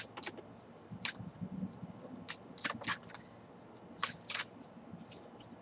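Tarot cards being shuffled in the hands: irregular short, crisp snaps and slides of the cards, about seven in all, faint.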